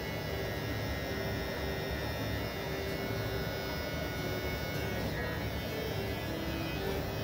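Electric hair clippers running with a steady buzz while trimming a fade.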